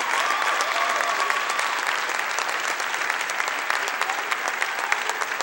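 Arena crowd applauding, dense clapping that slowly thins out and gets quieter.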